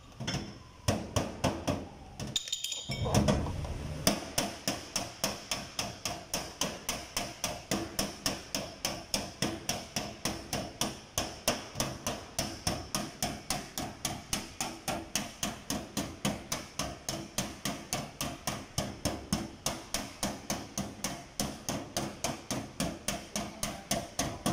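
Body hammer tapping on a car's sheet-metal door panel to work out a dent: a few irregular blows, then a steady run of light strikes about four a second.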